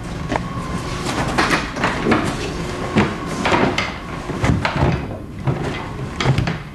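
Irregular knocks, bumps and rattles of sports equipment, balls and sticks, being rummaged through and shifted by hand.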